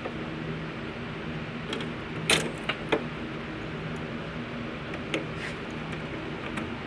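A few sharp metallic clicks and clinks of small clock-movement parts being handled, the loudest about two seconds in, then a quick pair and one more near five seconds, over a steady low hum.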